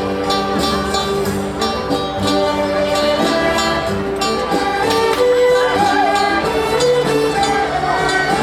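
Background music: plucked guitar with other instruments, a lively tune.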